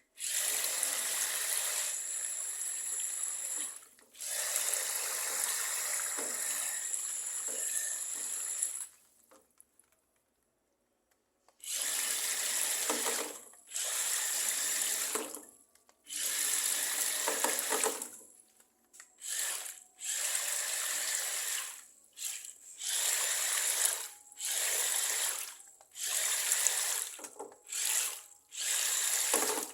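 Amphibious RC car driving on water: water churning and spraying in repeated bursts of one to four seconds that start and stop abruptly as the throttle is worked, with a thin high whine over the splashing.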